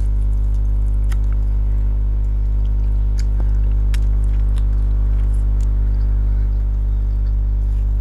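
A person chewing and eating food close to the microphone, with scattered soft wet clicks and smacks. A steady low hum runs underneath and is the loudest thing throughout.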